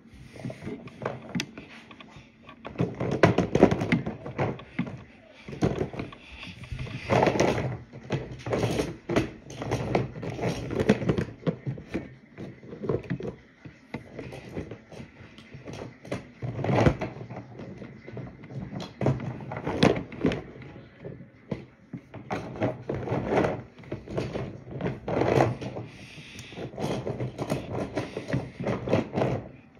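Irregular knocks, scrapes and rubbing of handling noise right against the microphone, many small bumps in quick succession.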